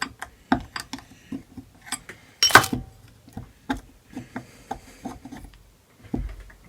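Small metal parts of a VW distributor being handled and taken out: a series of clicks, taps and rubbing scrapes, with a louder scrape about two and a half seconds in.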